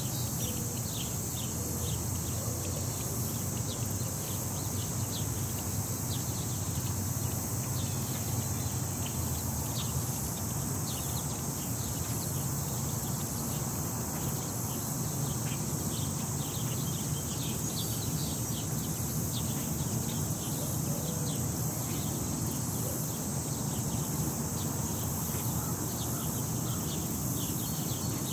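Outdoor ambience: a steady high-pitched hiss over a low rumble, with many short, faint chirps scattered throughout.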